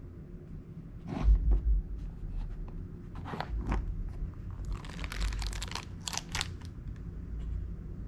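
Handling noise: scattered clicks and crinkling with low thumps, growing into a dense stretch of crackling about five seconds in, as things are moved about close to the microphone.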